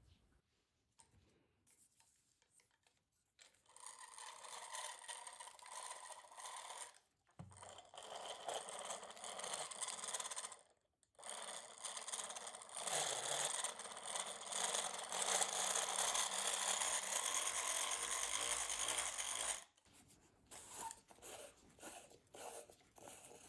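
Antique hand-crank wooden massage tool being cranked, its internal gear mechanism running with a noisy whir. It comes in three runs with brief pauses, the last the longest and loudest at about eight seconds. A few light clicks follow near the end as the tool is handled.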